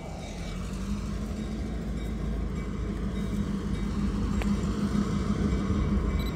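Norfolk Southern diesel locomotive No. 911 approaching with its engine running, a steady drone that grows louder as it draws near.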